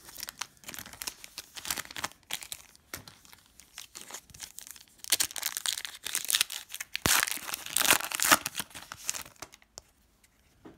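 Crinkling and rustling of trading-card packaging and cards being handled, with denser, louder crackling in the second half that dies away near the end.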